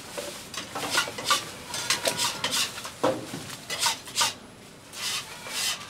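Irregular clatter and rustling of food-stall handling: a thin plastic bag being opened and a takeaway bowl being handled, with utensils clinking against steel counter trays.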